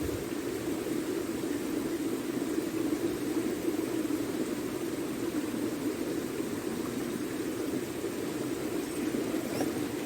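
Swollen river in flood, its water rushing in a steady, even noise.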